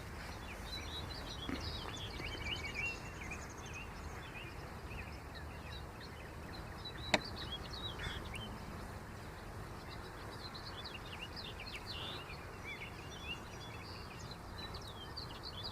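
Small birds chirping over a steady outdoor background hum, with one sharp click about seven seconds in.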